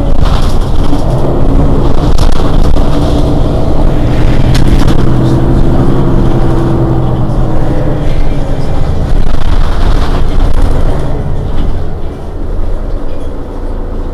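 Mercedes-Benz Citaro city bus's rear-mounted diesel engine idling while the bus stands still: a loud, steady low drone that eases off slightly near the end.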